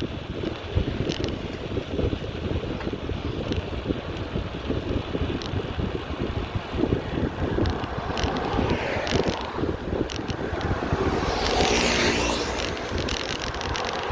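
Wind buffeting the microphone on a moving bicycle, with a motor vehicle approaching and passing close by, loudest about twelve seconds in and then fading.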